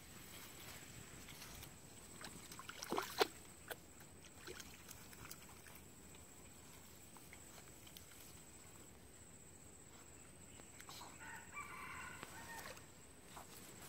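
A rooster crowing faintly, one drawn-out call about eleven seconds in. About three seconds in there is a shorter, louder rising sound.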